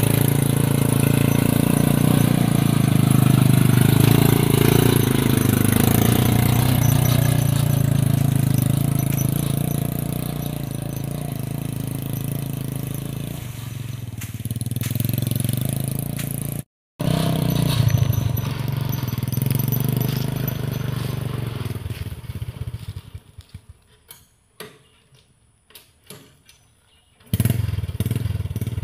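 Homemade three-wheeled cargo cart's Honda Supra motorcycle engine, a four-stroke single, running under load, its revs rising and falling as it pulls along a rough track. About two-thirds through the sound cuts out for a moment. Later it fades to near quiet with a few knocks for several seconds, then the engine comes back loud near the end.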